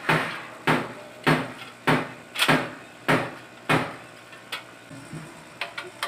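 Sharp knocks repeating evenly about every 0.6 seconds, lighter near the end, from hand work fitting the plastic flywheel cover onto a Promate 1500 gasoline generator.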